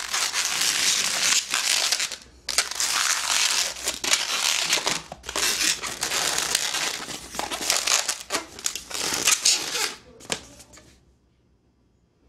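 Latex modelling balloon rubbing and squeaking against itself and the hands as its bubbles are twisted together, in three long stretches with short breaks, stopping about ten seconds in.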